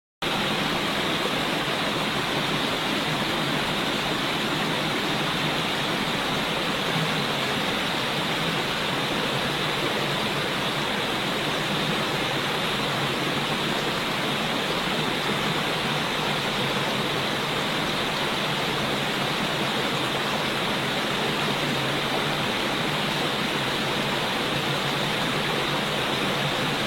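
Steady rushing water, an even unbroken hiss and roar that cuts in suddenly at the start and holds at one level throughout.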